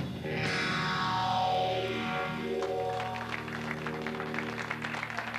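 A rock band's closing chord: electric guitar and bass ring out over a cymbal crash struck right at the start, fading over a couple of seconds. About three seconds in, an audience starts clapping over the last of the ringing chord.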